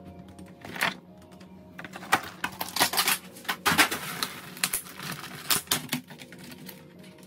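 Eggs and a plastic egg tray being handled while the eggs are set into a wire basket: a run of irregular light clicks and knocks, busiest from about two to six seconds in.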